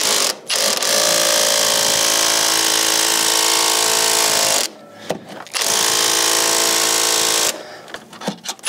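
Cordless power tool spinning a 19 mm socket to undo a Rover P6 2000 engine-mount bolt: the motor runs steadily for about three and a half seconds, stops briefly, then runs again for about two seconds. A few clicks of the socket come before and after the runs.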